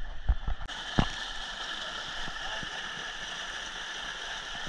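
Water rushing steadily into the entrance of a water slide, starting suddenly under a second in, after a few short knocks.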